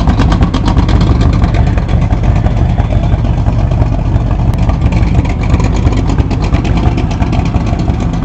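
A vehicle engine running steadily close to the microphone: a constant low hum with a fast, even pulsing that fades somewhat in the middle and returns later.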